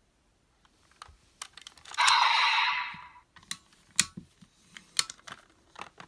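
Sharp plastic clicks and snaps of gashapon Raise Buckle toys being handled and fitted into a belt toy, with a short noisy burst about two seconds in.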